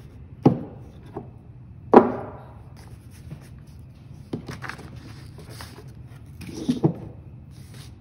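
Knocks of NEMA 17 stepper motors being picked up and set down on a wooden desk: two sharp ones about half a second and two seconds in, the second the loudest with a short ring, then a few lighter knocks and handling sounds near the middle and end.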